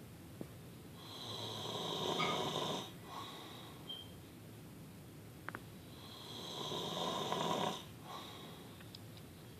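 A man snoring in his sleep: two long snores about five seconds apart, each lasting about two seconds, with quiet stretches between.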